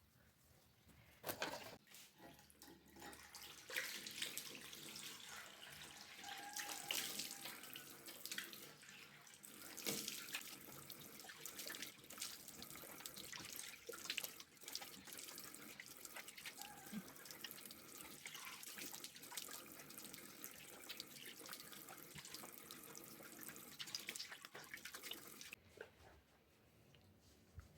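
Water running, as from a tap into a sink, with scattered small knocks. It starts about a second in and stops a couple of seconds before the end.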